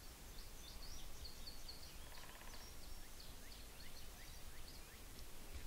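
Faint birdsong in quiet open country: a string of high chirps, with a brief lower rattling call about two seconds in.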